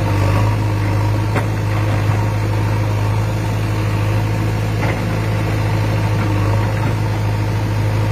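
A vehicle engine idling steadily, giving a low, even drone.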